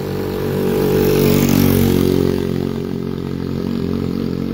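Motorbike engine running close by, swelling to its loudest between one and two seconds in, then carrying on a little quieter.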